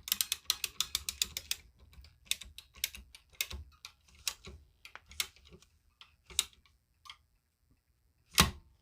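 PEX crimping tool clicking as it closes a crimp ring onto PEX pipe: a quick run of sharp clicks, about seven a second, for the first second and a half, then spaced single clicks, and one louder click near the end.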